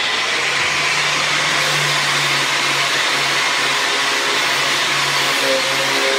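Electric angle grinder with a sanding pad running steadily, sanding a strip of bamboo.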